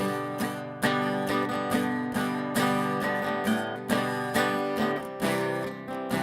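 Acoustic guitar strummed in a steady rhythm, about one strum every half second to second, playing an instrumental passage of a folk song.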